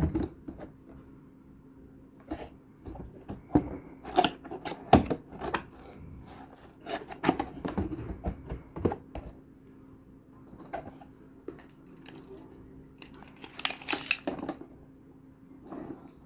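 Cardboard product box being handled and turned over by hand: a run of irregular scrapes, taps and rustles, with a second cluster of them near the end.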